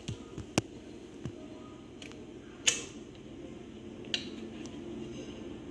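Four short, sharp clicks and knocks from kitchen handling, the loudest about halfway through, over a steady low hum.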